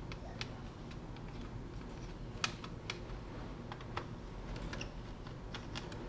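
Small screwdriver working the screws of a Lenovo G550 laptop's plastic bottom cover: scattered light clicks and ticks at an irregular pace, the sharpest about two and a half seconds in.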